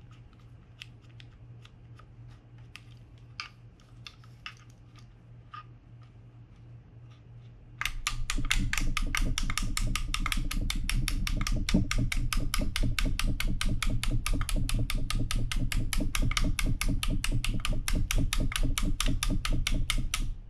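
A few scattered light clicks, then from about eight seconds in a fast, even run of light metal taps on a seized part inside a Daiwa BG90 spinning reel, stopping suddenly near the end. The tapping is knocking loose a stuck part of the broken anti-reverse.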